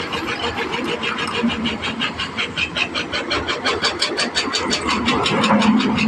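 Komatsu excavator working, its diesel engine running with a rapid, even clatter of about seven ticks a second.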